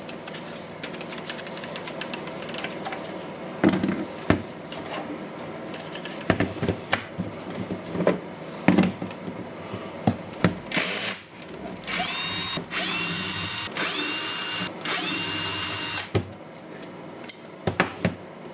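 Clicks and clatter of plastic and metal parts being handled, then a cordless electric screwdriver whirring in about five short bursts past the middle, backing out the housing screws of a Milwaukee M18 angle grinder being taken apart.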